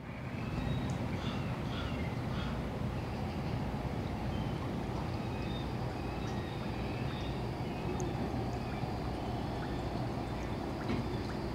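Harbor ambience: a steady low rumble with scattered short bird calls, most of them in the first few seconds, and a few small clicks.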